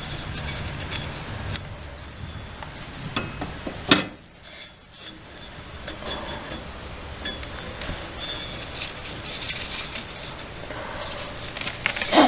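Handling noises of a drive belt being worked around the pulleys under a lawn tractor: scattered rubbing and light metallic clinks, with one sharp knock about four seconds in.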